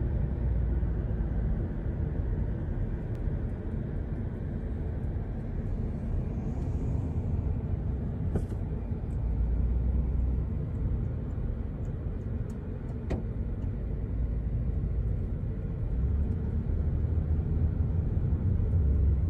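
Steady low rumble of a car and wind buffeting the microphone, with a few faint ticks; it grows a little louder near the end.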